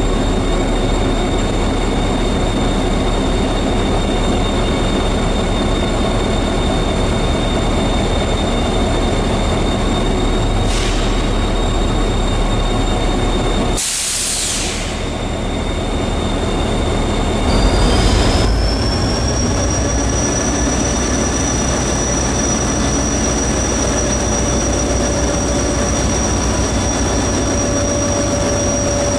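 Stationary Metra F40PH diesel-electric locomotive running at a standstill: a steady engine rumble with a constant high whine. About 14 seconds in comes a short, loud hiss of released air. A few seconds later a new whine rises in pitch and then holds steady.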